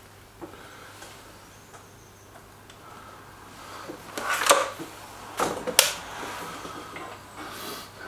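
Stoeger RX20 S2 break-barrel air rifle being fired: a cluster of sharp knocks and clicks about halfway through, then two more sharp cracks within the next second and a half, the last near six seconds in.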